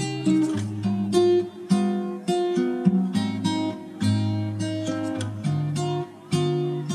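Background music: an acoustic guitar playing a run of plucked notes and chords.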